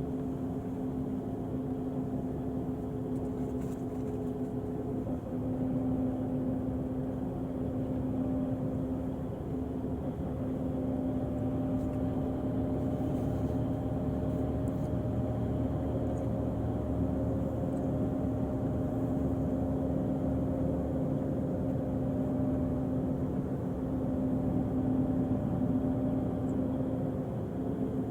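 Diesel engine of a Volvo coach chassis under an Irizar i6s body running steadily: an even drone with a constant low hum.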